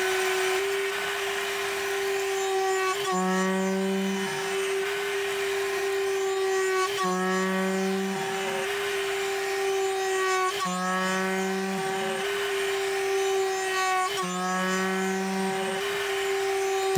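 DMC2 CNC mill facing 4140 alloy steel with a 10 mm insert mill: a steady cutting tone. Four times, every few seconds, the sound shifts as the tool changes direction: a brief glide and a lower tone lasting about a second. The machinist thinks this might mean the tool doesn't like entering the cut in certain conditions.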